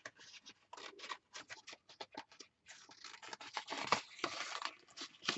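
Paper and craft scraps rustling and shuffling as they are sorted through by hand, in a run of irregular rustles and small taps that is busiest from about three to five seconds in.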